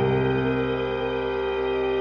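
Slow ambient background music of held, sustained chords.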